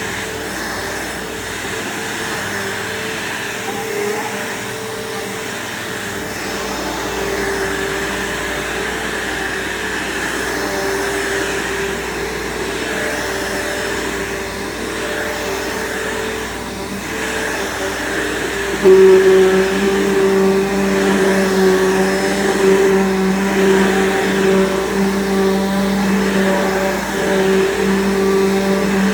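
Bissell PowerForce bagged vacuum cleaner running steadily with a motor whine and airflow noise. About 19 seconds in it gets louder and its pitch drops to a lower hum.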